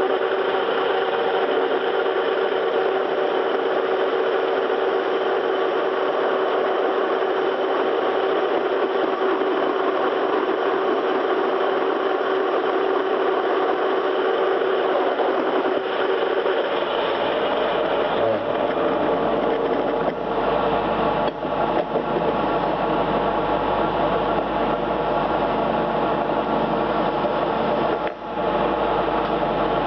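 Metal-turning lathe running steadily with a whirring tone. About halfway through the sound shifts and a low hum comes in.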